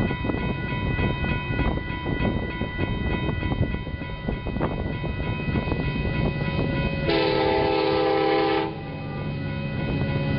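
An approaching Union Pacific diesel freight locomotive sounds one horn blast of about a second and a half, about seven seconds in, over a steady low rumble.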